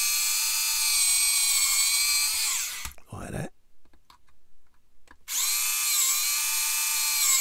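Small handheld electric mini drill whining at high speed as it bores LED holes into the plastic of a model kit. The whine dips and stops about three seconds in, then the drill starts again about two seconds later and runs on until near the end.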